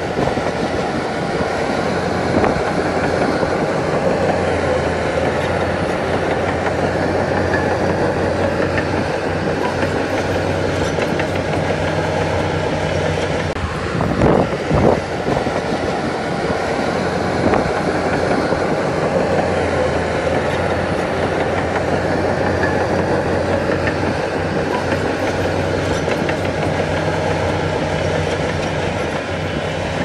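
Crawler bulldozer working: its diesel engine runs steadily under load over a continuous clanking rattle from the steel tracks, with a couple of louder clanks about halfway through.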